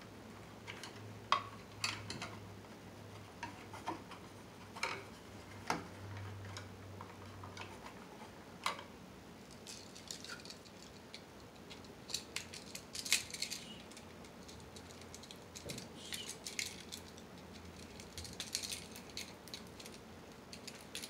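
Scattered small clicks and metallic clinks of hand work on electrical wiring: wires, pliers and a wall receptacle being handled at an outlet box. The clicks come more often in the second half.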